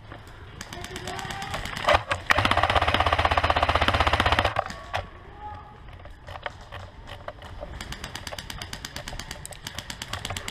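Airsoft guns firing on full auto: a loud, rapid burst lasting about two seconds, starting about two seconds in, with lighter fire before it and another fainter stretch of rapid fire near the end.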